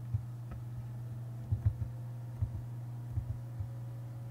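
Steady low electrical hum picked up by the recording microphone, with a handful of soft clicks from working the computer's keyboard and mouse, mostly in pairs.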